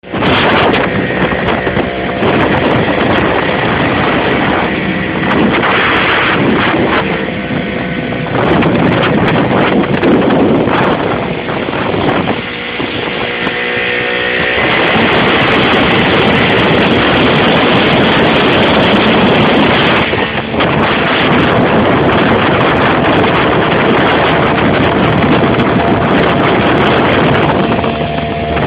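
Small motorboat under way: its engine running steadily over the rush of water, with wind buffeting the microphone.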